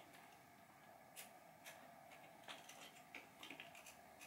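Near silence broken by a few faint, scattered clicks and taps: small metal hardware handled while the screws are taken out of pinball pop bumper assemblies.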